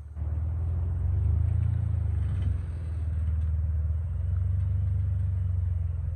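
Jeep Wrangler engine running at low revs as it crawls over rock, a steady low drone that swells slightly about a second in and eases off again.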